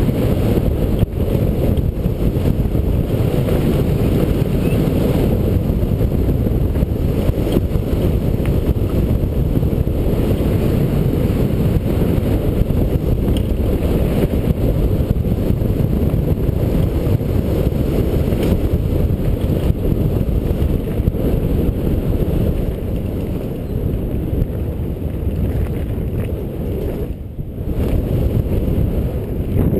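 Wind noise buffeting a helmet-mounted camera's microphone while a mountain bike rolls fast over loose gravel, with tyre crunch and scattered rattles from the bike. It dips briefly near the end.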